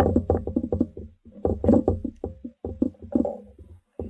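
A parcel and its packaging being handled and opened: a rapid, uneven run of knocks, taps and rustles.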